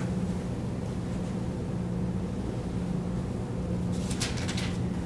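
Steady low hum of room tone, most likely mains hum or ventilation picked up by the chapel's microphone system, with a brief faint rustle about four seconds in.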